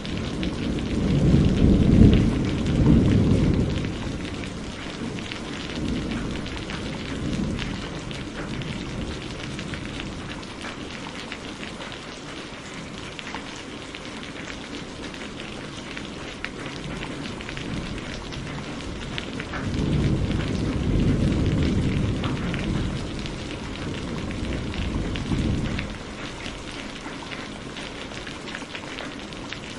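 Campfire burning with steady, dense crackling and popping of the wood. Two swells of low rumble rise over it, one near the start and one about two-thirds of the way in.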